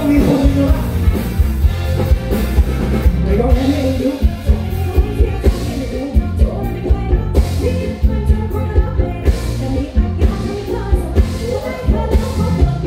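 Live band playing through a PA: sung vocals over electric guitar, bass and a drum kit keeping a steady beat.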